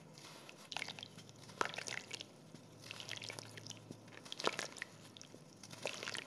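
Damp, gritty sand-cement lumps crunched and crumbled between the hands, in about five short bursts of crackling, with grit pattering down into the wet tub. The sharpest crunches come about a second and a half in and again past four seconds.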